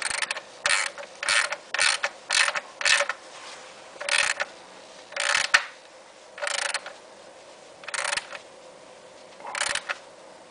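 Hand socket ratchet with a 9/16 socket turning a new PCV valve into its threaded aluminium port, the pawl clicking in short bursts on each back-swing. The strokes come quickly for the first three seconds, then slow to about one every one to two seconds as the valve runs down.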